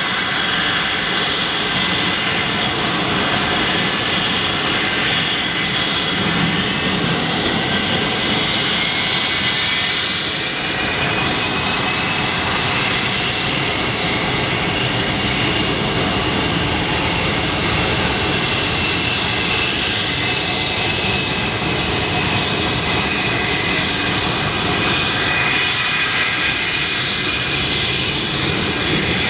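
English Electric Lightning's Rolls-Royce Avon jet engines running steadily on the ground: a constant loud rush with several high whining tones, some drifting slightly in pitch.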